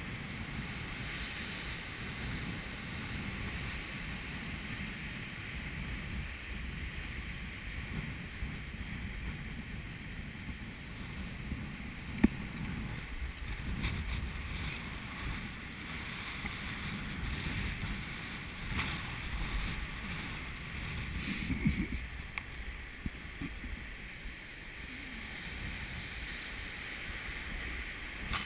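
Sea surf breaking and washing over coastal rocks, with wind buffeting the microphone; a louder surge near the end and a few sharp clicks, the strongest about twelve seconds in.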